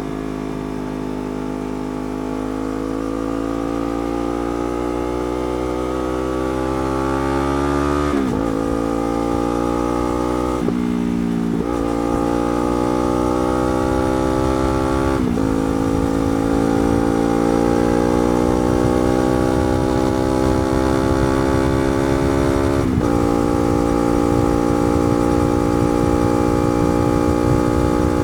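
Yamaha R3's 321 cc parallel-twin engine, fitted with a slip-on exhaust, pulling hard under acceleration. The pitch rises through each gear and drops sharply at each upshift, about four shifts in all, then holds fairly steady near the end.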